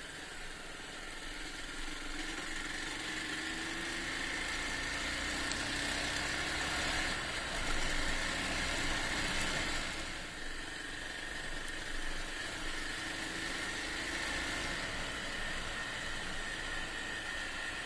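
Honda XR250 single-cylinder four-stroke motorcycle engine running under way, its pitch drifting gently up and down, under a steady rush of wind and road noise.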